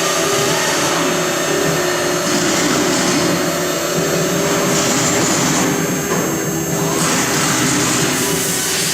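FL-6090 CNC router's spindle running steadily with a high whine while the bit engraves wood, the cutting noise swelling and easing as the head moves.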